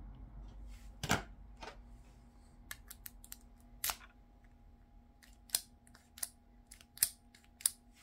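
Sharp metallic clicks, one at a time, about one every half second to second, from a Volkswagen door lock cylinder being handled and its key turned back and forth. The cam inside is engaging again after the repair.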